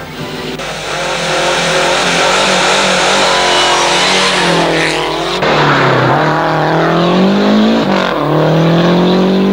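Rally car engine at full throttle on a stage, its pitch climbing and then dropping sharply at each gear change. The sound changes abruptly about five seconds in.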